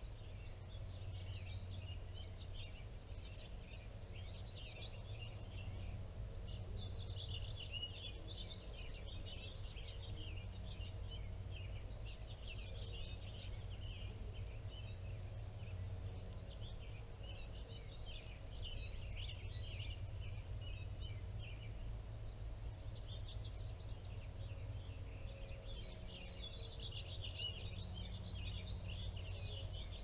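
Songbirds twittering and chirping in a busy, near-continuous chorus, with a few short lulls, over a low steady rumble.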